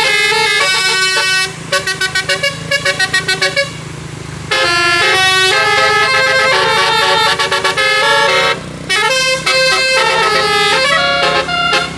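Bus telolet horn (Basuri multi-tone air horn) playing a melody of stepped notes. About a second and a half in it plays a run of quick staccato toots, about five a second, with short pauses between phrases.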